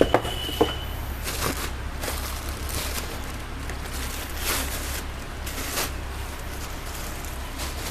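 Cardboard packaging and a portable speaker being handled: a few sharp knocks in the first second, then short rustling, sliding swishes every second or so over a steady low hum.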